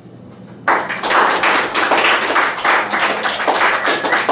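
Audience applause breaking out suddenly less than a second in and continuing loud and dense: many people clapping.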